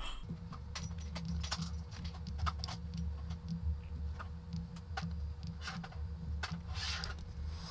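Scattered computer keyboard and mouse clicks as dimensions are typed in, over a steady low hum that starts just after the beginning and stops shortly before the end.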